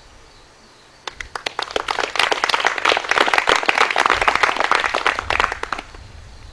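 Audience applauding: claps start about a second in, swell, and die away shortly before the end.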